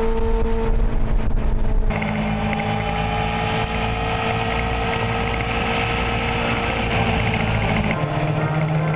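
Racing sidecar outfit's engine running at a steady high pitch, its note holding nearly level and sagging slightly. Wind buffets the microphone for the first two seconds or so.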